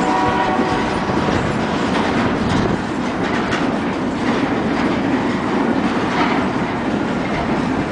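Empty double-stack intermodal well cars rolling past, a steady rumble of steel wheels on rail with repeated clacks over rail joints. A thin high steady tone fades out in the first second.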